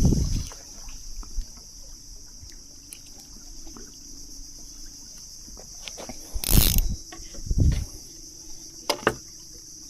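Steady high-pitched insect chorus, with several short thumps and rustles, the loudest about six and a half seconds in.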